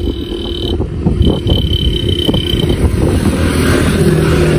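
A motor vehicle's engine running steadily, a dense low rumble.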